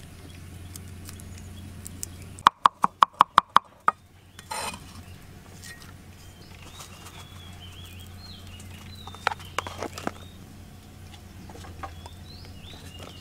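A cleaver chopping on a wooden cutting board: about eight quick, even knocks over a second and a half, a few seconds in. Small birds chirp in the background, and scattered clicks and taps come later.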